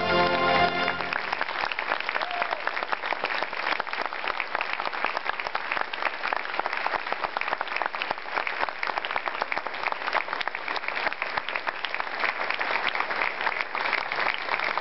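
A brass band's closing chord rings on and stops about a second in, then an audience applauds steadily.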